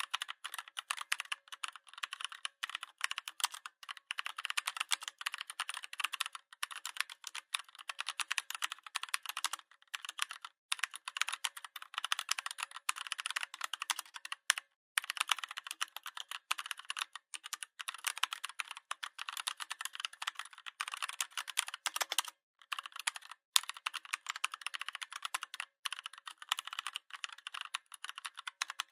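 Fast, continuous typing on a Redragon 61-key mechanical keyboard, its keys clicking rapidly, with a few brief pauses.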